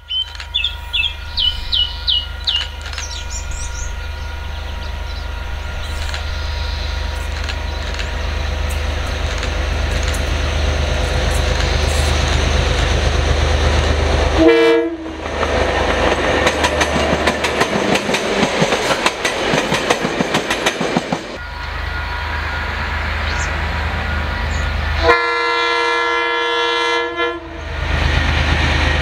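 Diesel-electric locomotive DC 4818 approaching with a steady low rumble, giving a short horn blast about halfway and then clattering past with its train. A longer horn blast of about two seconds, several notes sounding together, comes near the end, followed by the locomotive running on.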